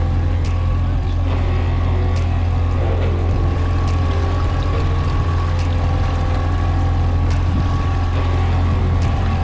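Boat motor running steadily while trolling, a low even drone with no change in speed.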